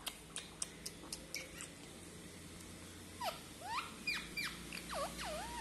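Pet lutino ringneck parakeet at close range: a quick run of sharp beak clicks in the first second and a half, then several short squeaky chirps that swoop down and up in pitch.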